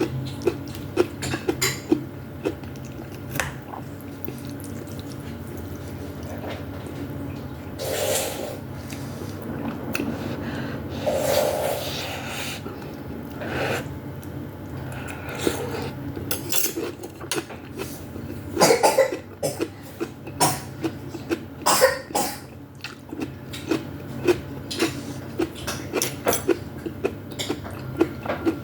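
Close-miked eating of vegetable soup with meatballs: chewing and slurping, with frequent small clinks of cutlery against the bowl and a few louder slurps or coughs along the way.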